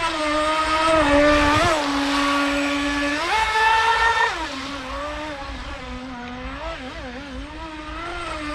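Motor of a small balsa-wood V-hull radio-controlled speedboat running at speed on the water, with a steady high-pitched tone. Its pitch rises about three seconds in, drops back a second later, then wavers lower as the boat runs across the pond.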